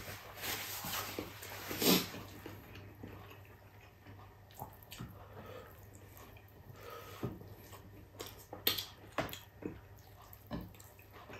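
Close-up eating sounds: wet chewing and mouth noises, with fingers picking meat and rice off a bone on a plate making small clicks and ticks. A louder breathy burst comes about two seconds in.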